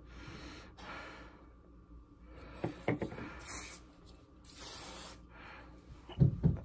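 About three short hissing sprays, like bursts from an aerosol can, with handling knocks about three seconds in and again near the end, where they are loudest.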